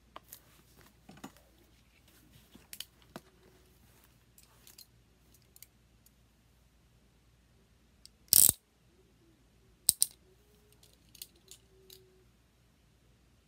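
Scattered clicks and plastic rustles from handling a carrot-shaped box cutter and a shrink-wrapped photobook, with a short loud rustle about eight seconds in and a sharp double click about a second and a half later.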